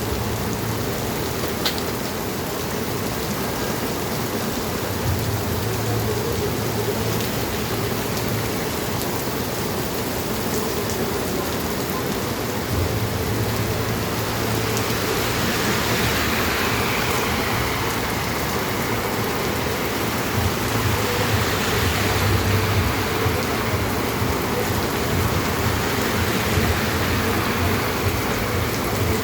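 Heavy rain falling steadily on a city street, an even hiss of rain on the pavement with a low rumble underneath that comes and goes.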